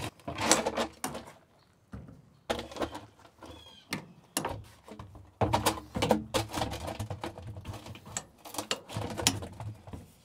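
Handling noise: knocks, clunks and scrapes as a plastic garbage can is shuffled into place and a small outboard motor's leg is tilted and lowered into it, in irregular separate bumps with short quiet gaps.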